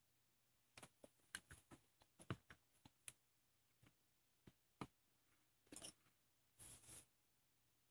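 Faint clicks and light taps of hands handling a plastic squeeze bottle and utensils on a wooden table. Near the end there are two brief rustles.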